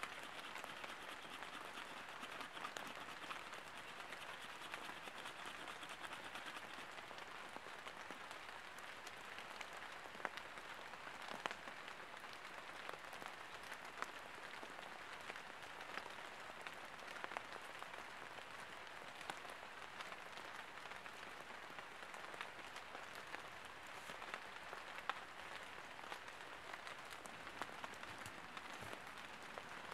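Steady rain pattering on leaves and the forest floor, an even hiss with scattered sharper ticks.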